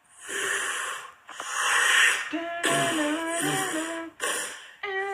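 Animated-show sound effects: two hissing whoosh bursts, then a pitched sound whose tone glides up and down, twice.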